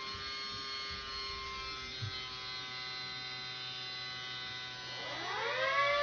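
Small electromechanical sirens: one holds a steady, many-overtoned tone that sags slightly in pitch, then about five seconds in a louder siren winds up with a rising wail and levels off at full pitch.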